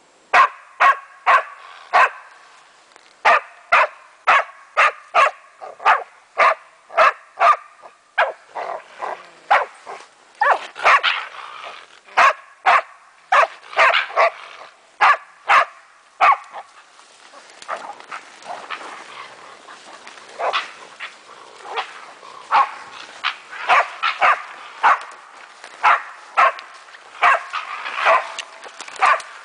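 Deutscher Wachtelhund barking over and over, about two sharp barks a second, baying at a raccoon dog it has cornered in the undergrowth. The barks thin out to a short lull in the middle, then come again in quick runs.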